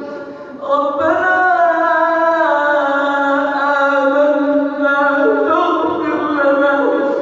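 A man reciting the Quran in melodic tajweed style, drawing out long held notes with ornamented turns in pitch. He pauses briefly for breath just before a second in.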